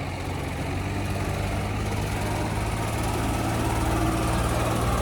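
Diesel tractor engines running steadily, getting a little louder toward the end.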